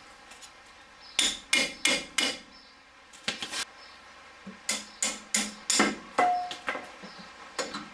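Sharp hammer-like blows on metal tooling around a socket and extension set in a driveshaft joint bolt, coming in quick groups of about three a second. One blow near the end rings briefly with a clear tone.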